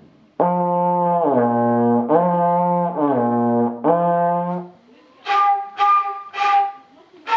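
Trombone playing five held notes that alternate between a higher and a lower pitch, gliding smoothly from one to the next. About five seconds in come three short, higher-pitched buzzes from a brass mouthpiece blown on its own.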